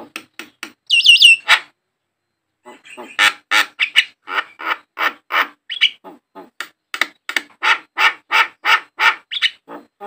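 Javan myna (jalak kebo) calling: three quick clear whistles about a second in, then after a short pause a steady run of harsh notes, about three a second.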